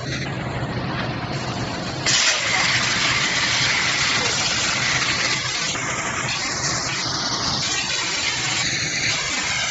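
CNC plasma cutter working on sheet metal over a low machine hum. About two seconds in, the plasma arc starts with a sudden, loud, steady hiss that carries on as it cuts.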